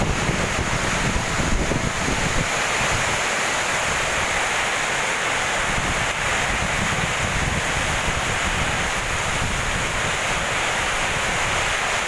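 Strong gusting wind with heavy, wind-driven rain: a steady rushing hiss, with gusts buffeting the microphone in an uneven low rumble.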